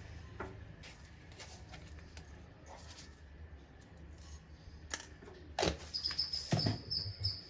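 Light metal scrapes and knocks of a spoon stirring spice powders and fennel seeds roasting in a pan, over a low steady hum. From about six seconds in, a high, rapidly pulsing chirp joins.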